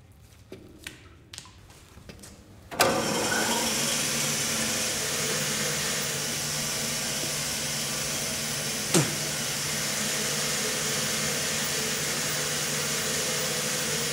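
An electric band saw is switched on after a few light handling clicks and then runs steadily with a low hum and hiss. A short falling tone cuts across it about nine seconds in.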